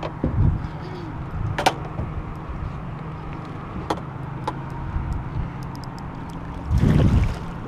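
Boat motor running with a steady low hum, under a few sharp clicks and a brief loud rush near the end.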